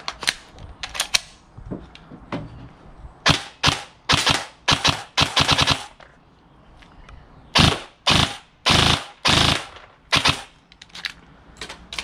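SAI GRY airsoft electric rifle firing a string of short rapid bursts, each a quick rattle of shots, with a few single shots between them.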